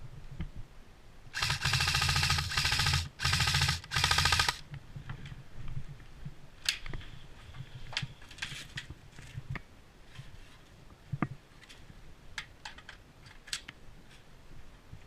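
Airsoft electric gun (AEG) firing three full-auto bursts in quick succession, a rapid mechanical rattle of the gearbox cycling, the first burst about a second and a half long. Scattered sharp clicks and ticks follow.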